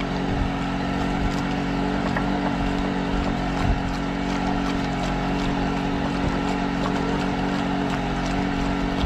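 An engine aboard a fishing boat running steadily at a constant speed, a low, even hum.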